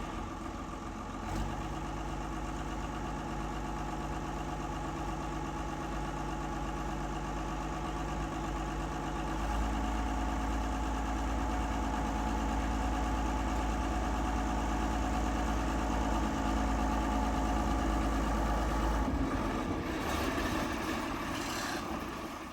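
Narrow-gauge diesel locomotive engine running steadily. It grows louder about nine seconds in and eases off a little near the end.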